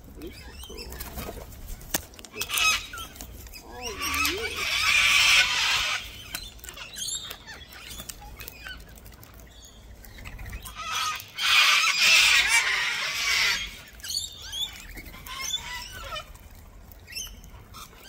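Sulphur-crested cockatoos giving two long, harsh screeches, one about four seconds in and another a little past the middle, among scattered short chirps and squeaks from the feeding flock.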